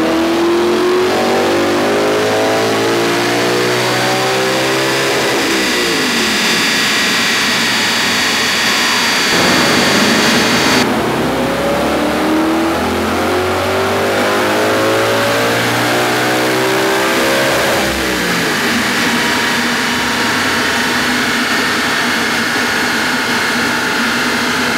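Audi R8's naturally aspirated 4.2 V8 making full-throttle pulls on a chassis dyno: the engine note climbs steadily in pitch for about five seconds, falls away as the throttle closes, then climbs again in a second long pull from about ten seconds in that drops off near eighteen seconds. It then runs at a steady pitch.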